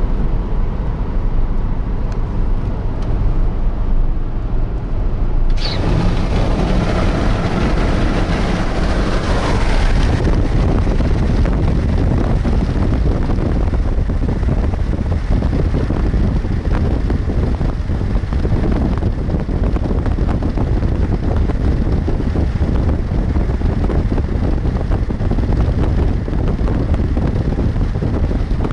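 Road and wind noise of a car driving at speed: a steady low rumble with rushing air. About five seconds in, the rush suddenly turns brighter and hissier and stays so.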